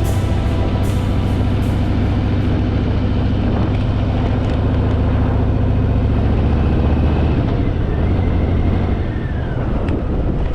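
Harley-Davidson Fat Boy's V-twin engine running steadily while riding, with road and wind noise. The engine note eases off about eight seconds in.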